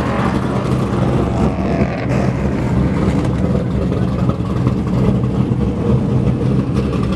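Loud car engine running steadily with a deep, even note and no clear revving.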